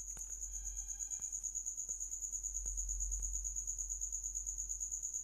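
Steady high-pitched insect chirping in rapid, even pulses, about ten a second.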